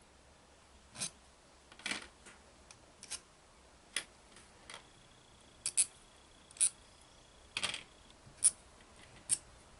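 Small screws and metal parts of a Chevy throttle body injection unit being handled on a workbench: about a dozen sharp, irregularly spaced metallic clicks and taps.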